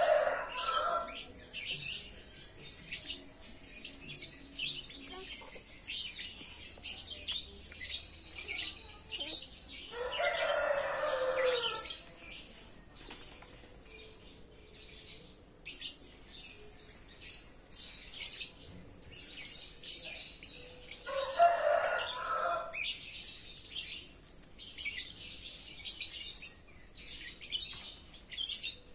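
Birds chirping constantly, with wings flapping. Three louder bursts stand out: one near the start, one about ten seconds in and one about twenty-one seconds in.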